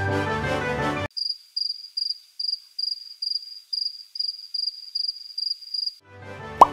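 Cricket-chirp sound effect over dead silence after the background music cuts off about a second in: a high, even chirp repeated about two times a second, the stock comic cue for an awkward pause. The music comes back near the end with a quick rising slide.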